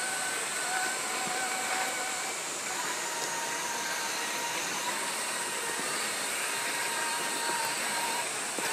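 Axial SCX6 1/6-scale RC rock crawler's electric motor and geared drivetrain whirring steadily as it crawls slowly over rock. A thin whine changes pitch a couple of times with the throttle.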